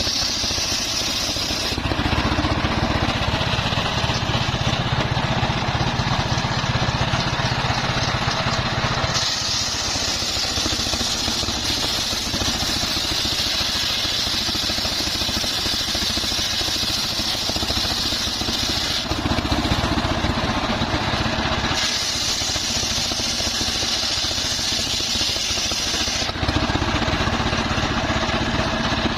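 Engine-driven homemade circular sawmill running steadily. Every few seconds its sound shifts between a high, bright whine and a heavier low rumble, as the blade runs through a trembesi log and then spins between cuts.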